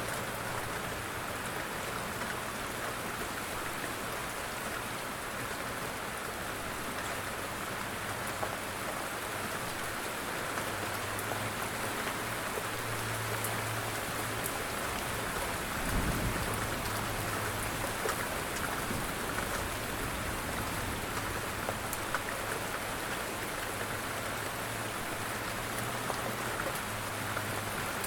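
Steady rain falling and pattering on surfaces, with a brief low thump about halfway through.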